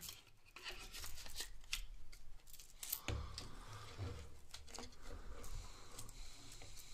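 Knife and hard plastic sheath being handled: the tanto is slid into the sheath and its retaining strap worked around the handle. It makes a run of scattered clicks, scrapes and rustles.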